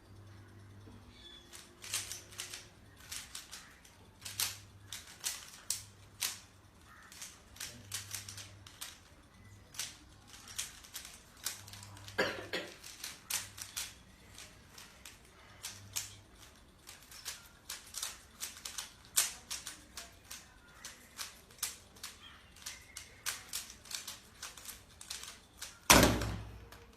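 3x3 Rubik's cube being turned fast by hand: a run of irregular plastic clicks and clacks as its layers snap round. A louder knock comes near the end.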